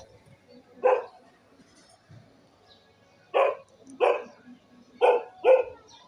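A dog barking: a single short bark about a second in, then four more short barks spaced through the second half.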